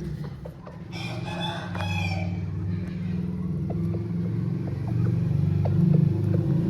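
An Aseel gamefowl rooster crows once, a call of about a second and a half, over a steady low rumble that grows louder toward the end.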